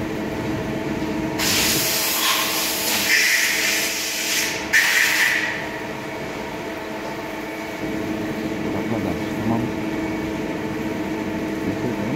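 A metal lathe runs with a steady hum while it machines a metal workpiece, and a loud hiss sounds for about four seconds, starting roughly a second and a half in and breaking off for a moment partway through.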